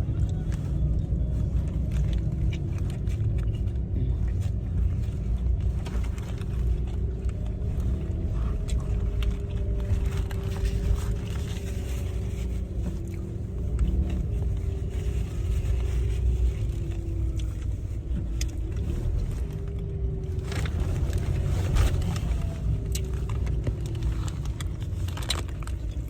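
Car cabin noise while the car is being driven: a steady low rumble of engine and road. A few sharp clicks and knocks come in the last few seconds.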